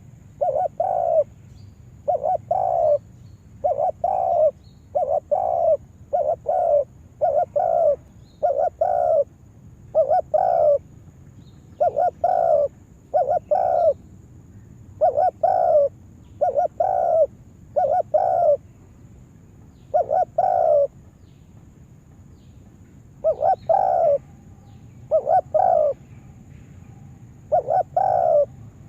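Spotted dove (tekukur) cooing: a series of short, low coo notes, repeated in groups of two or three, with a longer pause about three-quarters of the way through.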